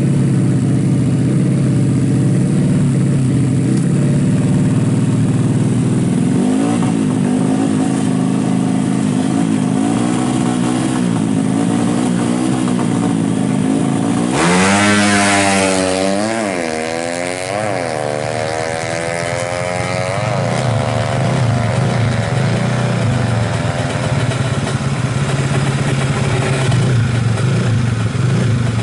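Suzuki Smash motorcycle engine, bored to 130cc and fitted with an AHRS exhaust, running steadily and then revving up and down. About halfway through it revs hard in several quick rises and falls, followed by a long climbing rev that settles back into a steady drone.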